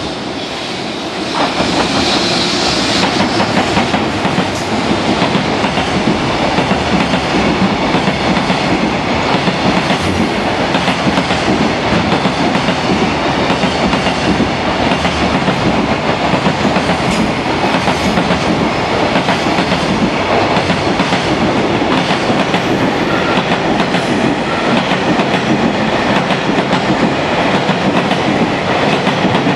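Container freight train running through a station without stopping. It gets louder about a second and a half in as the front of the train arrives, then the wheels of a long line of container wagons keep up a steady noise on the rails.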